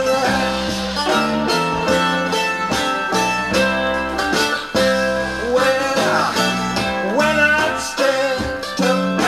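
Blues-rock recording playing from a vinyl LP: a plucked guitar passage with notes that glide in pitch, and no words.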